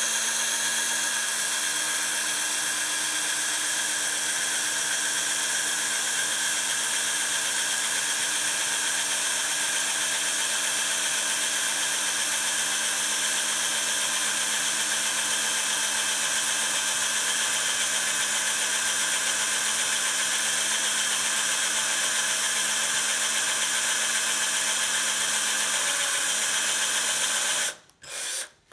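Electric drill running steadily while drilling a vintage bicycle quick-release skewer to lighten it. It cuts off suddenly near the end, spins up briefly once more, then stops.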